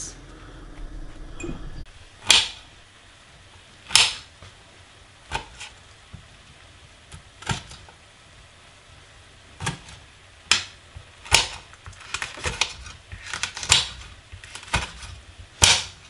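Kitchen knife slicing green chillies on a glass chopping board: sharp, separate taps of the blade striking the glass, roughly one a second at an uneven pace.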